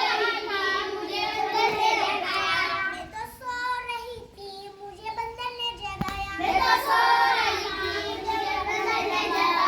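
A group of children singing together in a classroom, breaking off for a couple of seconds about midway and then starting again.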